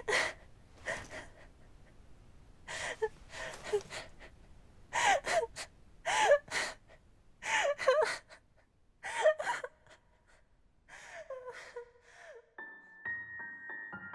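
A girl sobbing in a run of gasping, breathy sobs with short wavering cries. Soft piano notes begin near the end.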